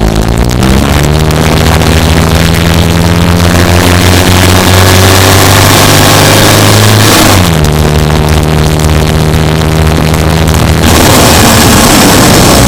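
Subaru Impreza Sport GT7's 2.0-litre flat-four engine running under way, loud, over heavy road noise. Its pitch steps up about a second in, holds steady, then drops sharply about seven seconds in.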